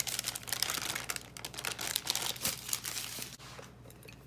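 Parchment paper crinkling and rustling as it is peeled off rolled pie dough, stopping about three and a half seconds in.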